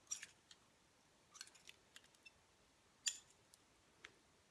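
A few faint, short clicks and light rustles from a curling iron being worked through long hair, the clearest click about three seconds in.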